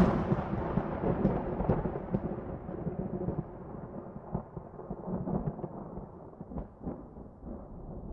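Rolling thunder sound effect rumbling and slowly dying away, with a few sharp crackles in its second half, its high end fading steadily.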